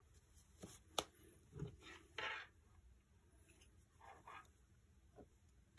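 Faint handling noises of a Nikon F3 camera body being picked up and turned in cloth-gloved hands: a sharp click about a second in, then soft bumps and brief rustles.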